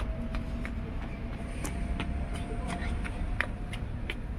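Steady low outdoor rumble with scattered light clicks and ticks; a faint steady tone runs under it and stops near the end.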